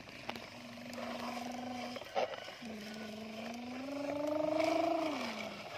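A person's voice imitating a truck engine for a push-along plastic toy dump truck. A steady hum is broken by a brief knock about two seconds in, then a second hum rises in pitch like revving and drops back near the end.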